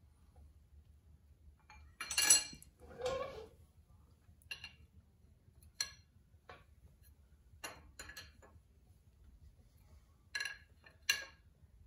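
A steel combination wrench clinking against a head bolt and the cylinder head of a Mopar flathead six: about nine sharp metallic clicks at uneven spacing, the loudest about two seconds in and another pair near the end.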